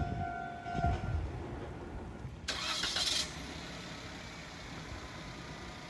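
A Japanese level crossing's electronic warning bell is ringing with its pulsing tone over the rumble of the departing train. Both stop about a second in. A short hiss follows at about two and a half seconds, then the low steady running of road vehicles.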